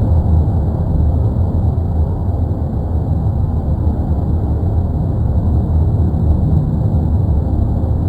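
Erupting volcano's continuous deep roar, a steady low rumble with no breaks or separate blasts.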